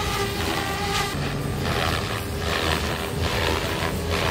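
Radio-controlled helicopter flying aerobatics, its motor and rotor whine sliding in pitch as the pilot works the throttle and pitch, with background music mixed in.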